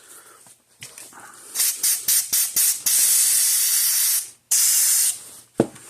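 Aerosol spray cleaner squirted onto a circuit board: several short squirts, then two longer sprays with a brief pause between them, followed by a single thump near the end.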